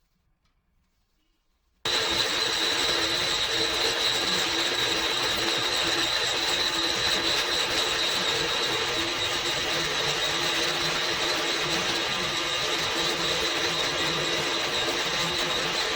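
Electric power tool running steadily with a high whine, cutting in suddenly about two seconds in after near silence.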